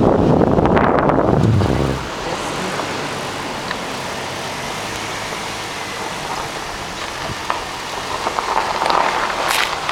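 Wind buffeting an outdoor camera microphone, heavy and rumbling for the first two seconds, then a steady even hiss, with rough crackling near the end.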